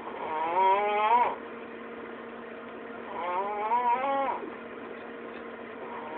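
A man snoring: two long, wavering, pitched snores about three seconds apart, each rising in pitch at its end, with a third beginning near the end. A steady low hum runs underneath.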